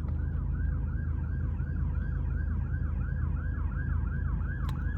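Police car siren on a fast wail, rising and falling about three times a second as it passes, heard from inside a moving car over the steady low road rumble.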